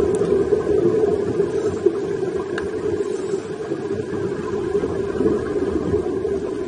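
Steady, muffled underwater noise picked up by a dive camera in its housing.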